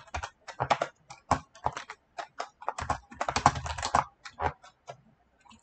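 Typing on a computer keyboard: irregular runs of key clicks, busiest about three to four seconds in and thinning out near the end.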